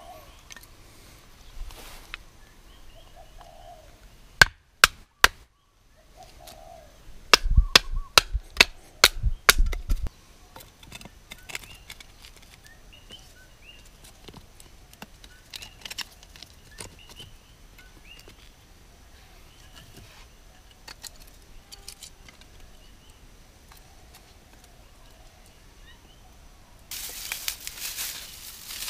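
Sharp wooden knocks and clacks as kindling is split and laid for a campfire: a few single knocks, then a quick run of about eight, then lighter clacks of sticks being stacked. Near the end, dry fern tinder rustles as it is dropped onto the stack.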